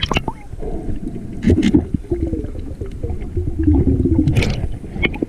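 Muffled underwater sound picked up by a GoPro in its waterproof housing. A steady low rumble of moving water runs through it, with sharp clicks and knocks about five times and a wavering hum in the middle.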